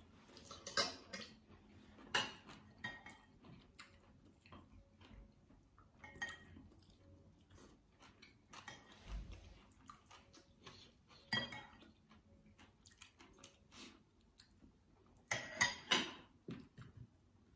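Fork and spoon clinking and scraping on ceramic plates during a meal, with quieter chewing between the strokes. Scattered strokes throughout, with louder bursts about a second in, around the middle and near the end.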